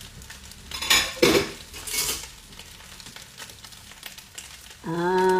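Kitchen clatter of dishes and a metal spoon, with a few sharp clinks about one and two seconds in, over faint sizzling from fried rice in a pot.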